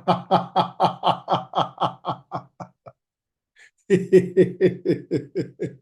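A man laughing in a rhythmic 'ha-ha-ha', about six pulses a second, in two bouts with a pause of about a second in the middle: deliberate laughter-yoga laughter, released after a held breath.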